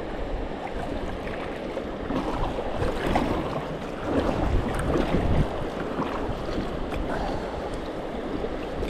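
Rushing river water around a kayak, with wind noise on the microphone and scattered splashes, a little louder from about four seconds in.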